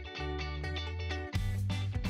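Background music with plucked guitar-like notes; about a second and a half in it turns louder and fuller, with a beat coming in.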